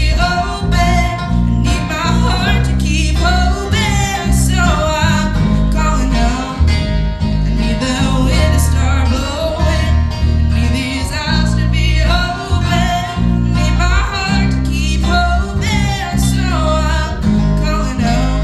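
Country gospel song: singing over acoustic guitar and deep bass notes that step from chord to chord.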